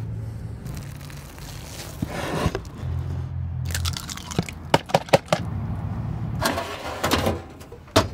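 Hand food-prep sounds: an egg cracked into a plastic tub, then a utensil stirring it and clicking sharply against the plastic several times about halfway through, with rustling, a lone click near the end and a low hum underneath.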